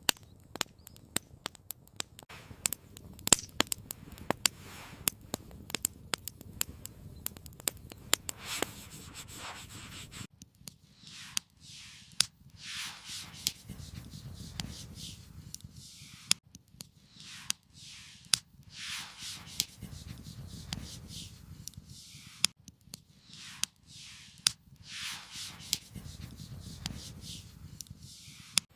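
Campfire crackling with many sharp pops. About ten seconds in, the background changes and a run of repeated scraping, rubbing strokes, roughly one a second, joins the crackle.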